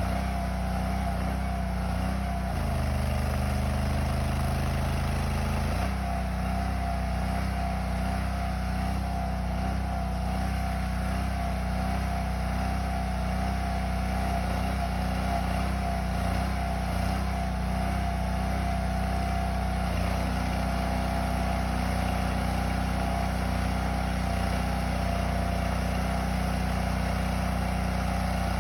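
Chain trencher's engine running steadily while cutting the trench. Its note changes for a few seconds near the start and shifts slightly again about two-thirds of the way through.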